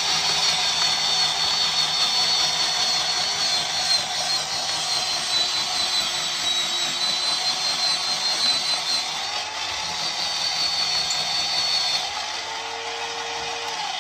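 Electric rotary drum grater running steadily with a high whine while grinding hazelnuts. It gets a little quieter, and its pitch shifts, near the end.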